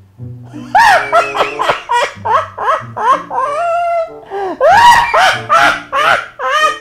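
A man's loud Joker-impression laugh: a long run of sharp 'ha' syllables, about three a second, each arching up and down in pitch. A steady music bed plays underneath.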